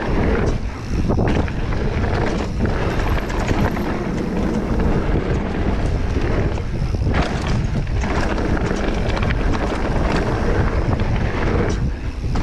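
Wind buffeting a helmet- or bike-mounted action camera's microphone during a fast mountain bike descent, with the bike rattling and knocking over bumps and landings.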